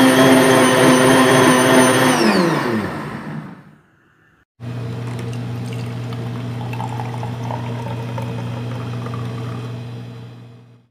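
LadyShip electric blender motor running while blending dates and milk, then switched off and winding down over about a second and a half. After a short silence, a steady low hum as the drink is poured from the blender's tap into a glass, fading out near the end.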